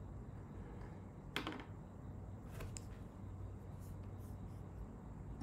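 Quiet room tone with a steady low hum and a few soft clicks, the clearest about a second and a half in.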